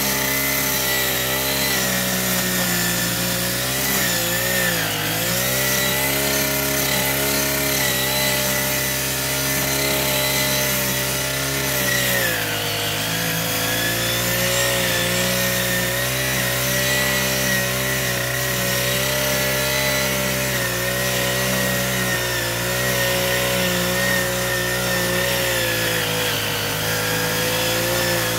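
Backpack grass cutter (brush cutter) engine running at a steady high speed. Its pitch sags briefly and recovers twice, about four seconds in and about twelve seconds in, as the cutting head takes on grass.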